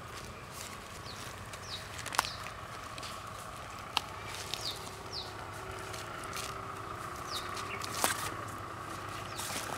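Layered sheaths of a banana-tree trunk handled and peeled apart by hand, with rustling and three sharp snaps, about two, four and eight seconds in. Short falling bird chirps recur throughout over a steady hum.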